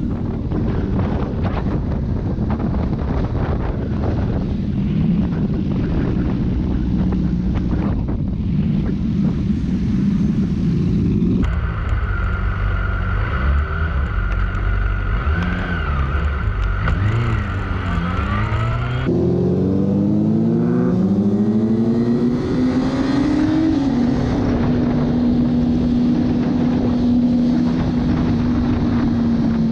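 Sport-bike engine running under way with wind rushing over the camera. Its pitch climbs as the bike accelerates from about two-thirds of the way through, then holds steady near the end.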